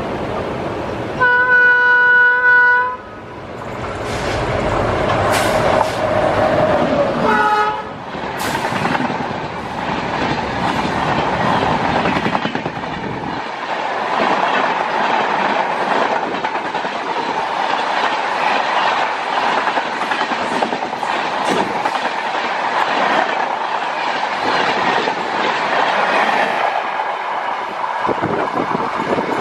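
An Indian Railways train's locomotive horn blows for about two seconds, then gives a shorter second blast, and the train passes with steady wheel clatter over the rail joints.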